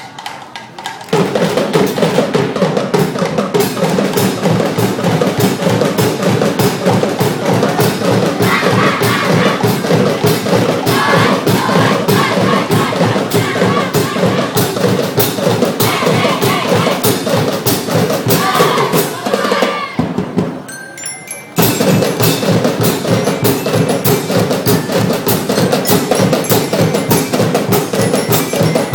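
Fast, percussion-heavy dance music with dense, rapid drumming, coming in loud about a second in, dropping away briefly just after two-thirds of the way through, then resuming.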